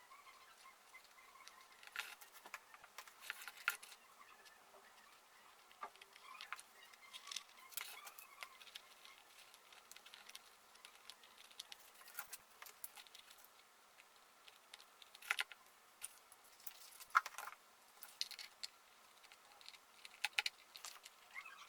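Scattered light taps, clicks and rustles of small craft materials being handled, irregular and quiet, with a few sharper clicks about two to four seconds in and again near the end.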